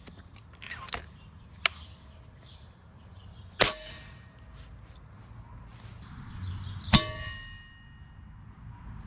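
Air rifle shots with pellets striking a metal pan, three sharp cracks a second or two apart. The later hits leave the pan ringing briefly, and the last, about seven seconds in, is the loudest and rings longest.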